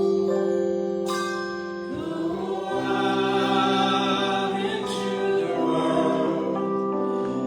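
Congregation singing a hymn together over a steady instrumental accompaniment of held notes.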